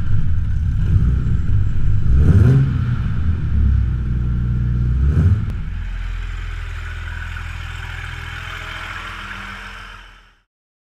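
Mercedes-Benz 280SL's straight-six engine running, heard close to its twin tailpipes. It is blipped twice, about two and five seconds in, then settles to a steady idle and cuts off suddenly near the end.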